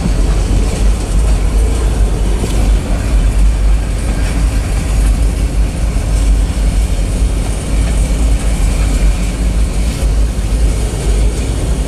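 Freight train cars (tank cars and covered hoppers) rolling past close by: a loud, steady rumble of steel wheels on rail.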